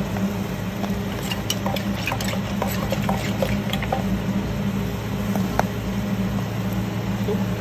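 Metal spoon clinking against seasoning jars and ladling liquid seasonings into a clay mortar while making som tam, with wet splashing and a scatter of light clicks, busiest in the first half. A steady low hum runs underneath.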